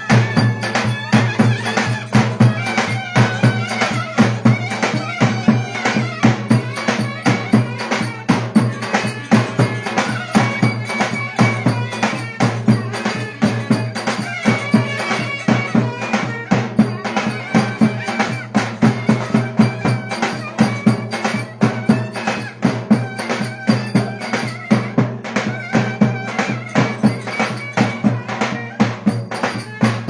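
Live Turkish folk dance music: a davul bass drum beaten in a quick, steady rhythm under a reedy wind-instrument melody over a steady low drone.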